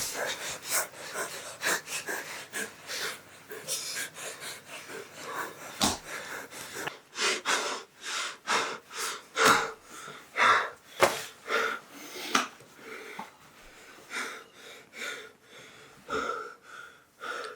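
A person breathing hard: short, noisy, wheezy breaths in and out, one or two a second.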